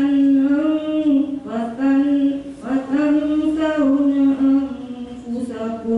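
A woman reciting Quranic Arabic in a slow, melodic chant, holding long notes with short pauses between phrases.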